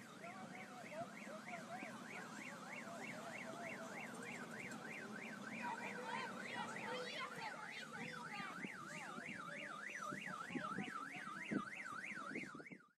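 An electronic alarm warbling rapidly up and down, about four times a second, steady in level. It cuts off suddenly near the end.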